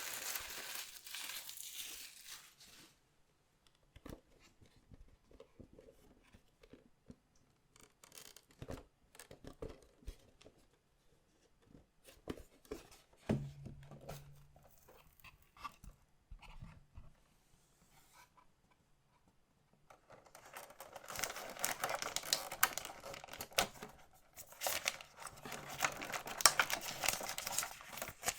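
Plastic wrappers of collectible card packs being crinkled and torn open by hand. There are sparse clicks and taps of handling in between: dense crinkling and tearing in the first couple of seconds, quieter handling through the middle, then steady crinkling again over roughly the last third.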